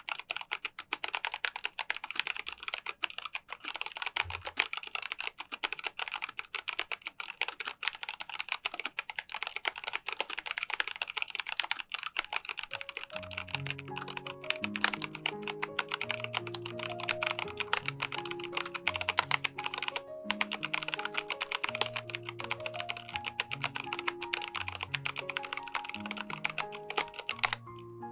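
Fast, continuous typing on a Micronics WARP WK3 tenkeyless mechanical keyboard with MANIC brown (tactile) switches: a dense stream of key clacks with one brief pause. Soft piano-like music joins about halfway through, and the typing stops just before the end while the music carries on.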